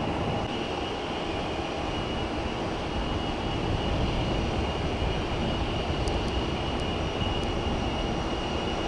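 Steady jet aircraft engine noise across the airfield, an even rumble with a thin, steady high whine over it.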